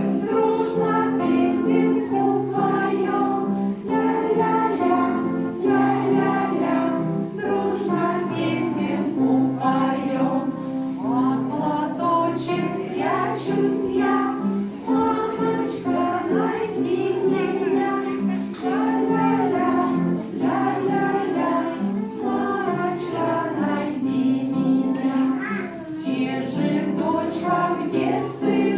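Music: a song with voices singing over instrumental accompaniment and a steady beat.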